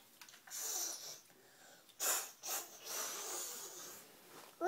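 A young child's breathy hissing and blowing sounds, several in a row, the last one longer.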